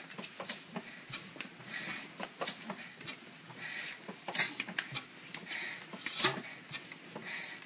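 4 hp International Harvester Mogul hit-and-miss gasoline engine being cranked over by hand at its flywheels without firing. A hissing puff of air comes about once a second, the strongest about six seconds in, along with some knocks from the mechanism.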